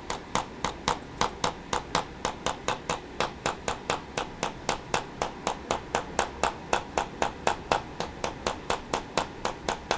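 Handheld chiropractic adjusting instrument firing a steady, rapid series of sharp clicking taps, about five a second without a break.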